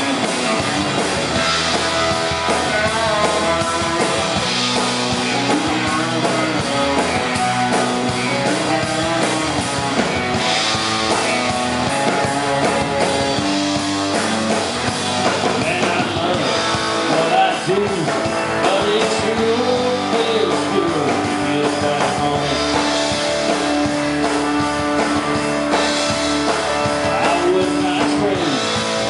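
Live country-rock band playing, with acoustic guitars, electric bass and drums.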